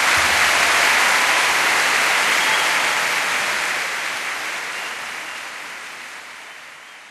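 Applause from a crowd, swelling in the first second and then slowly fading away.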